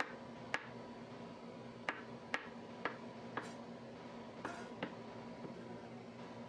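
Chef's knife slicing mushrooms on a wooden cutting board, the blade knocking the board about eight times at an uneven pace.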